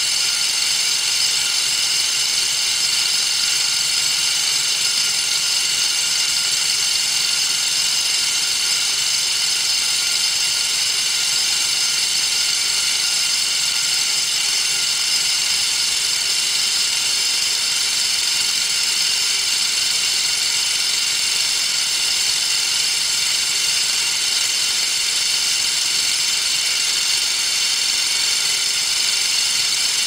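Several wind-up vibrating alarm bells ringing under water. The strikers keep up a continuous ring with many high overtones, steady throughout without letting up.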